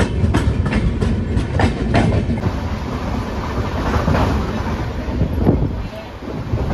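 Passenger train running along the track, its wheels clacking over the rail joints at about three clacks a second over a steady rumble.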